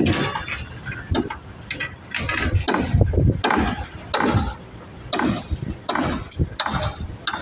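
Irregular clicking and knocking, a mechanical clatter of hard objects.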